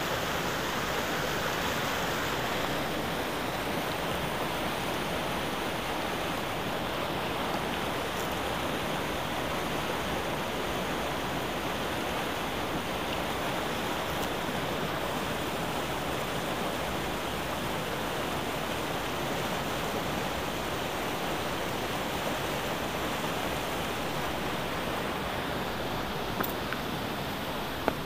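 Mountain creek rushing through whitewater rapids over boulders: a steady, even rush of water. A couple of light knocks near the end.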